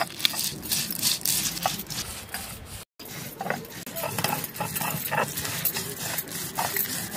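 Mustard seeds and green chillies being ground on a flat stone slab (shil-nora) with a hand-held grinding stone: repeated rough scraping, gritty strokes of stone on stone.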